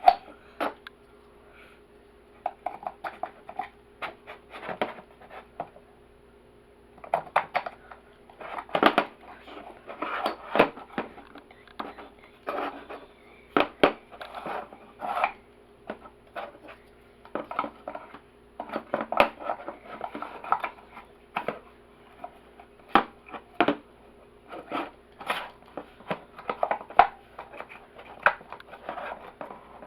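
Puzzle box and its pieces being handled: irregular clicks, taps and scrapes in clusters, with a quiet stretch near the start and another a few seconds in.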